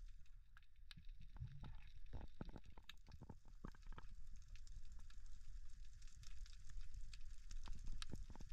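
Underwater ambience picked up by a diver's camera: a steady high crackle of tiny clicks over a low rumble, with a cluster of soft knocks about two to four seconds in.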